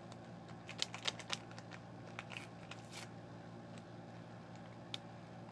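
Paper drink-mix packets crinkling and crackling as they are handled and opened, a run of short sharp crackles about a second in, then one more click near the end.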